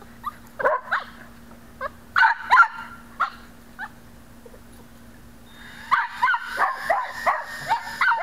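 Dog barking and yipping: a few scattered short barks, then rapid, excited barking for the last two seconds.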